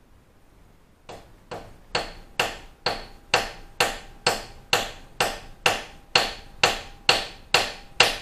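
Hammer tapping a new cylinder-head dowel pin down into its hole: a steady run of about sixteen sharp blows, roughly two a second, each with a short ring, starting about a second in. The pin is a tight fit.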